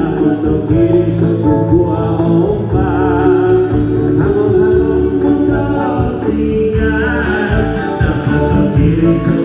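Live band playing a Bidayuh song through a loud PA: a man sings over electric guitars, keyboard and a heavy bass line.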